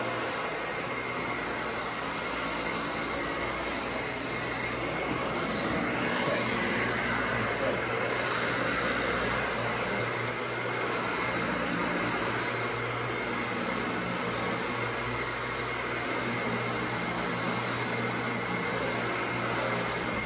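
Dyson Ball Animal upright vacuum cleaner running steadily as it is pushed back and forth over carpet, its motor giving a thin, high, steady whine over the rushing airflow.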